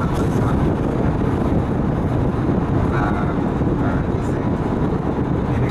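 Steady, even drone of a bus cruising at highway speed, heard from inside the cabin: engine and tyre noise.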